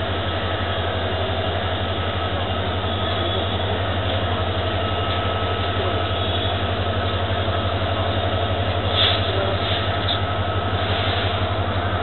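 EMD WDP4 diesel locomotive, with a 16-cylinder two-stroke EMD 710 engine, idling at a standstill: a steady low throb with a fast even pulse and a steady higher whine above it. A short sharper sound cuts in about nine seconds in.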